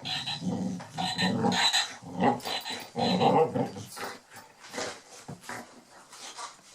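Boxer dog growling in play while mouthing a squeaky toy frog, in loud rough bursts through the first two seconds and again about three seconds in, then quieter.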